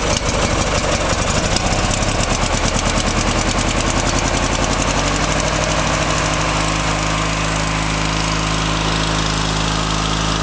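Craftsman riding mower's 19.5 HP Briggs & Stratton engine running on choke just after a cold start. It pulses a little unevenly for the first few seconds, then settles into a steady run.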